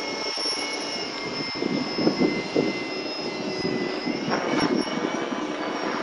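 Align T-Rex 600 electric RC helicopter flying overhead: a steady high whine from its brushless motor and gears over the rushing of the rotor blades. The sound swells louder twice, about two seconds in and again near four and a half seconds.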